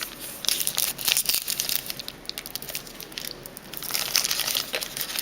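A trading card pack's wrapper crinkling in the hands as it is torn open, a busy run of quick crackles that thickens near the end.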